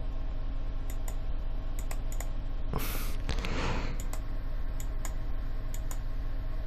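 Computer keyboard keys and mouse buttons clicking now and then. There is a short rushing noise about three seconds in, over a steady low hum.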